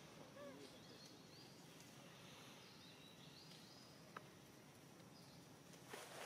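Near silence: faint outdoor background with soft, short, rising high chirps repeating through it, and a small click about four seconds in.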